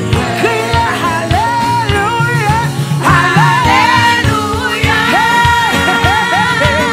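A woman singing a gospel praise song into a microphone, with long held and gliding notes, over backing music with a steady drum beat and bass.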